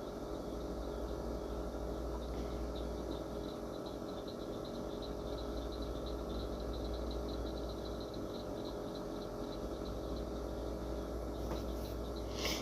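Steady low electrical hum with a fast, faint, high-pitched chirping pulse that sets in about two seconds in; a short breathy hiss near the end.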